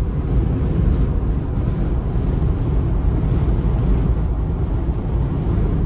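Steady low rumble inside a moving car's cabin: strong blizzard wind buffeting the car, mixed with tyre and engine noise.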